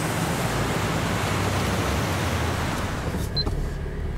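A steady rushing hiss over a low car-cabin rumble. The hiss drops away about three seconds in, leaving the low rumble of the car, with a brief high blip just after.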